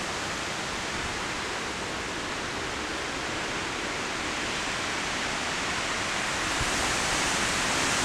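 Strong storm wind rushing through tall trees, with heavy rain: a steady hiss that swells near the end.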